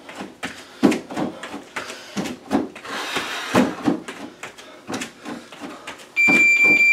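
Bare feet thumping on a plastic aerobic step platform in quick, uneven step-ups and step-downs. About six seconds in, a steady high electronic beep starts and is the loudest sound: a workout timer marking the halfway point of the round.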